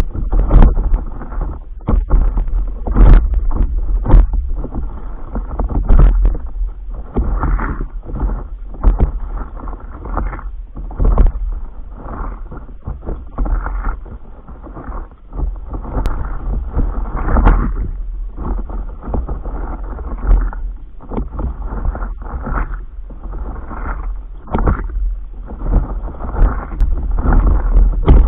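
Water slapping and splashing against the nose of a stand-up paddleboard as it is paddled along, with wind rumbling on the board-mounted camera's microphone. The splashes come irregularly, over a constant deep rumble.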